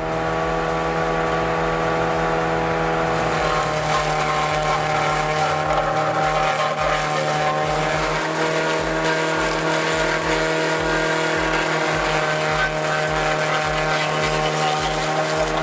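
A machine's engine running steadily at constant speed, a steady drone with a low pulsing underneath.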